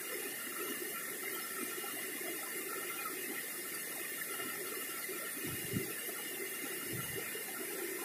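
River water flowing steadily over rocks, with two soft low thumps, one a little after halfway and another about a second later.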